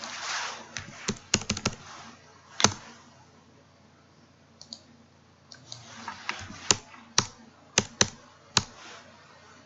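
Computer keyboard typing and mouse clicks: a quick run of sharp key taps and clicks in the first few seconds, a quiet pause, then several more spaced clicks near the end, as numbers are typed in.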